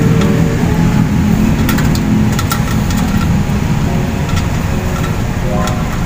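A steady low rumble like an idling engine.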